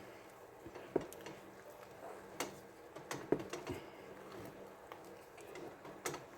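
Wooden spoon knocking and scraping in a saucepan while beating egg into thick puff dough: scattered sharp clacks at irregular intervals, a few close together about three seconds in.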